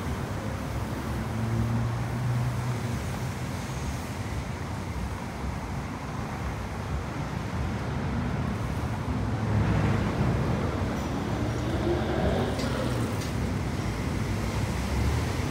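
Car engine running low and steady as the car rolls slowly forward, its hum swelling briefly a couple of times.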